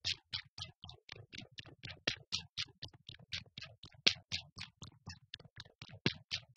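Electronic glitch soundtrack of fast, evenly spaced hissy clicks, about four to five a second, over low pulses, with a heavier click and deep thump every two seconds.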